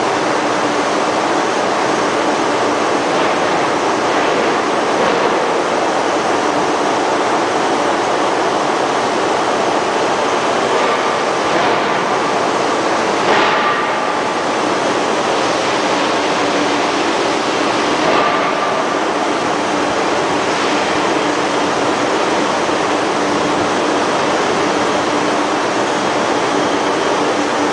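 Loud, steady roar of forging-factory machinery, with two brief metallic clanks that ring for a moment, about 13 and 18 seconds in.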